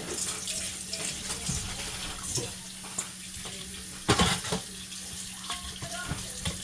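Kitchen tap running into a sink while fish is rinsed under it, with a few sharp knocks of handling in the sink, the loudest a double knock about four seconds in. A steady low hum runs underneath.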